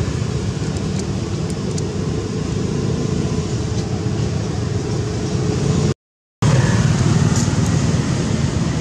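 Steady low rumbling noise with no clear pitch, broken by a complete dropout of about half a second roughly six seconds in.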